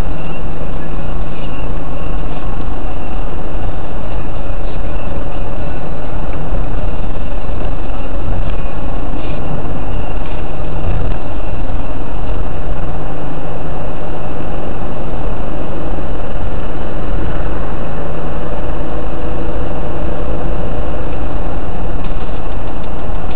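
Car driving at road speed, its engine and tyre noise heard steadily from inside the cabin through a dashcam microphone, loud throughout.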